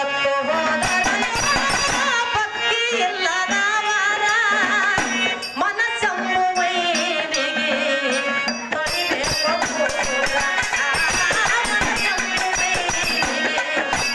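Kannada bhajan (devotional song) music: a melody that bends and wavers in pitch over a steady low drone, with continuous percussion strokes throughout.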